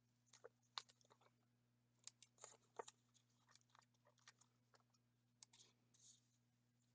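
Faint, scattered crinkles and small clicks of paper pieces being handled and pressed onto a handmade card, over a faint steady low hum.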